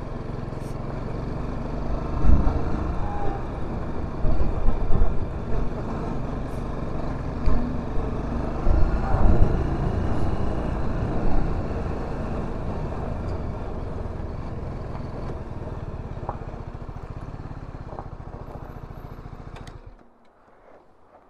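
TVS Apache RR 310 motorcycle's single-cylinder engine running steadily on the move, with gusts of wind buffeting the microphone now and then. The sound cuts off abruptly shortly before the end.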